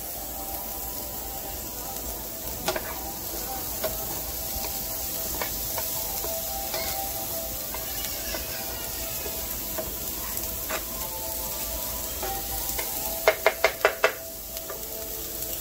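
Diced onions sizzling in oil in a nonstick frying pan, stirred with a wooden spatula that clicks against the pan now and then. Near the end comes a quick run of about five sharp knocks.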